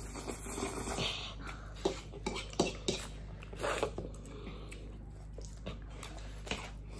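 Close-up eating sounds of noodles: a slurp in the first second, then scattered short slurps and smacks, with forks clicking against plates.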